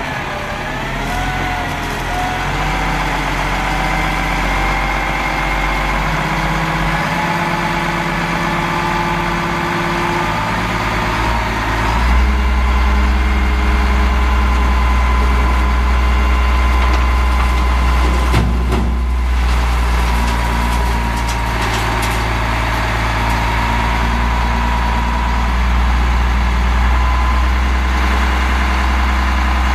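CAT 3126 7.2-litre straight-six diesel of a Sterling dump truck running steadily while the hydraulic hoist raises the dump bed. Its tone rises in pitch at the start, and the low rumble steps up louder about twelve seconds in. A short knock comes partway through.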